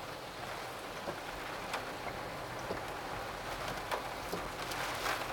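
Steady typhoon rain falling, with sharp ticks of single drops striking now and then.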